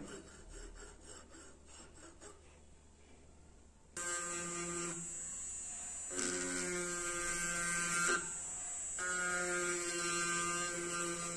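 A jeweller's piercing saw cuts silver in faint quick strokes, about four a second. About four seconds in, a small electric rotary tool starts: a handpiece with a small burr grinding the silver, giving a steady whine that eases off and picks up again a few times.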